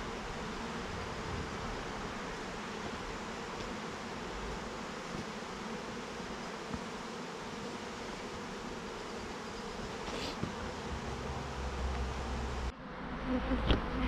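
A large swarm of honeybees buzzing steadily around the hive boxes, a dense, continuous hum. Near the end it breaks off abruptly, followed by a few sharp knocks.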